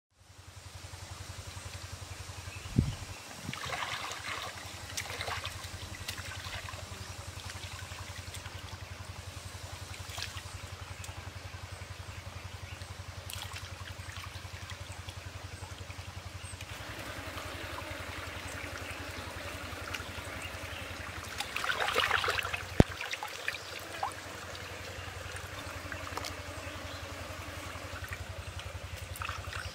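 Hands swishing and splashing something in shallow pool water, in spells, loudest about two-thirds of the way through, with a sharp click just after. A steady low hum runs underneath.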